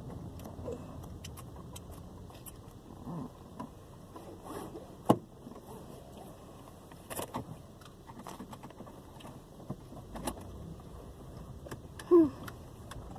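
Scattered sharp clicks and light rustles of an object being handled, the loudest click about five seconds in, over a steady low rumble; a brief vocal sound near the end.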